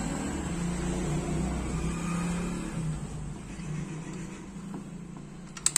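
A motor vehicle's engine running steadily in the background, its low hum dying away after about three seconds. A few sharp clicks sound near the end.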